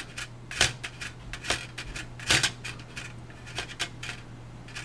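Small plastic-and-metal clicks and scrapes from the disc-loading arms of a PS3 optical drive being pushed by hand with the drive motor removed: about five sharp clicks at uneven intervals, the loudest about halfway through.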